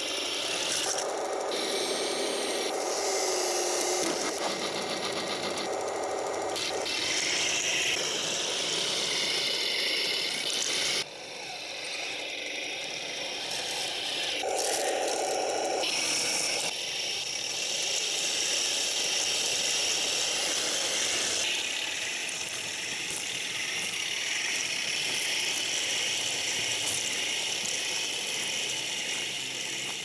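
Taigen Panther PRO 1/16 radio-controlled tank driving: a steady mechanical whine from its electric drive motors and metal gearboxes and tracks. The sound changes abruptly several times.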